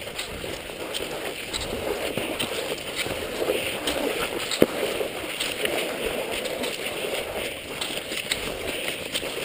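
Cross-country skis sliding and scraping in groomed classic tracks, a continuous swishing with pole plants in the snow, and one sharp click about halfway through.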